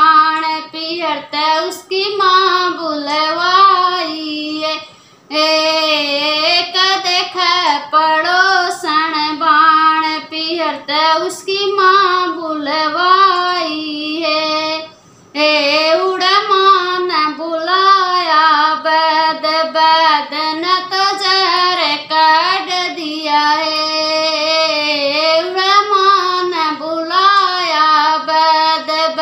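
A woman singing a Haryanvi folk song solo, with no instruments, in long held, melismatic lines. She breaks off briefly for breath about 5 seconds in and again about 15 seconds in.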